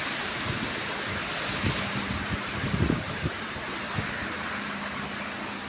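Steady rain falling, a continuous even hiss, with a few low thumps about two to three seconds in.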